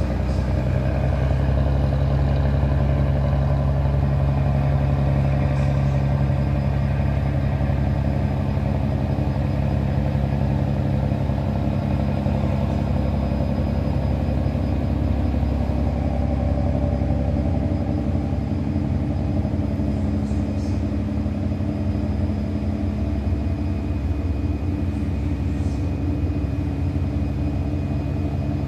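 Boat engine running steadily, a low engine hum that holds an even pitch.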